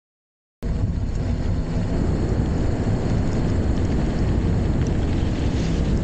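Wind rumbling on an action camera's microphone while riding a mountain bike, a steady low rush that cuts in suddenly about half a second in.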